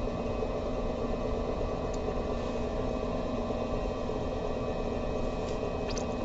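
Electric pottery wheel running at a steady speed: an even motor hum that holds constant.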